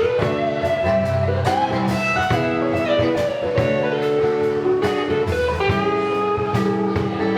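Live band playing an instrumental passage led by guitar, with bass and drums.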